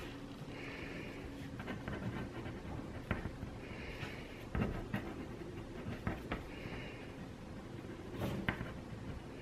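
Ballpoint pen writing on paper on a table: short scratchy strokes in bursts every few seconds, with light taps and clicks of the pen and paper in between.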